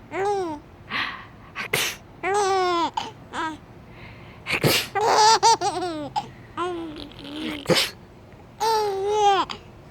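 A baby squealing and laughing in short high-pitched bursts, with a few sharp adult sneezes in between that set off more laughter.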